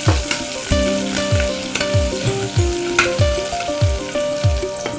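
Potato pieces, beans and drumstick leaves sizzling in oil in a pressure cooker as a spoon stirs them. Background music with a steady deep drum beat and held synth notes plays over it.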